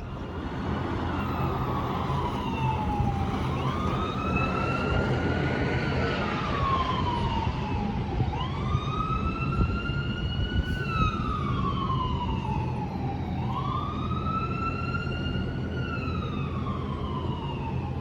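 Emergency vehicle siren in a slow wail: the pitch climbs quickly, then slides slowly down, repeating about every five seconds. A steady low rumble runs underneath.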